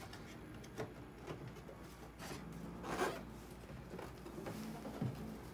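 Hands rubbing, pressing and knocking on the plastic casing of a Panasonic dehumidifier, in short scrapes and taps with the loudest about three seconds in, over a faint steady low hum.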